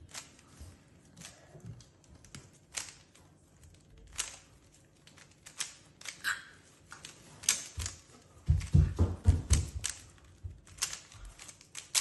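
Plastic 3x3 Rubik's cube being turned quickly by hand, its layers clicking in an irregular run of sharp clicks. About eight and a half seconds in there is a denser burst of heavier knocks.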